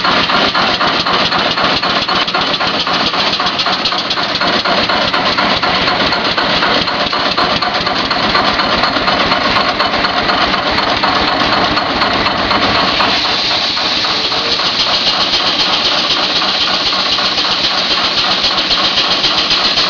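An AR tractor's engine running steadily while powering a sawmill, with a rapid, even firing beat.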